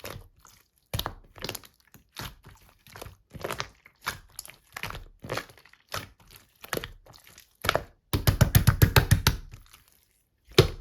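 Slime being squeezed and worked by hand, giving irregular wet clicks and crackling pops. From about eight seconds in, a quick run of louder pops, about eight a second, for over a second.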